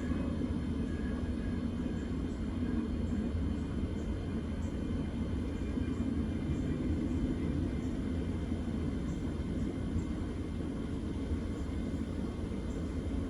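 Strong gusty wind rumbling and buffeting against a phone microphone, a steady low roar that swells and eases without break.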